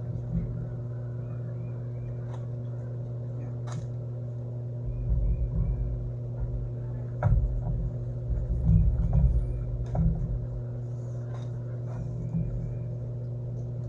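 A steady low hum that begins suddenly at the start, with irregular low rumbles from about five seconds in and a few faint clicks.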